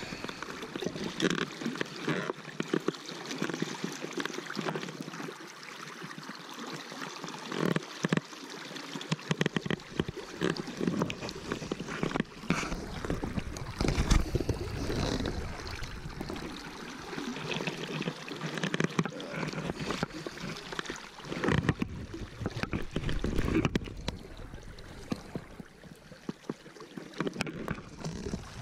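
River water splashing and sloshing as a wooden landing net is dipped and worked in the current to release a brown trout, with many short irregular splashes over the rush of the river.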